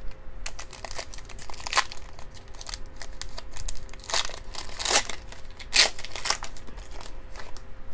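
Foil wrapper of a Donruss Optic Fast Break basketball-card pack crinkling and crackling as it is picked up, handled and torn open, with the busiest crackling in the second half.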